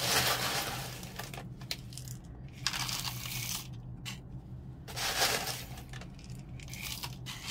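Masato grit poured from a plastic scoop into small plastic nursery pots, rattling and hissing as it lands. There are three pours: one at the start, one about three seconds in and one about five seconds in, with a few small clicks between them.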